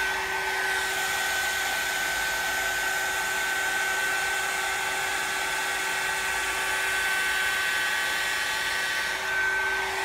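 Hot-air curl dryer (Louvredo Fukugen curl dryer) running steadily, a rush of air with a steady high motor whine over it.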